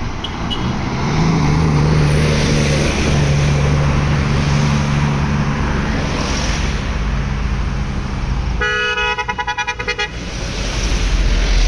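Heavy vehicles and cars passing on the road, a truck engine running steadily as it goes by. About eight and a half seconds in, a vehicle horn sounds for about a second and a half, its note pulsing rapidly.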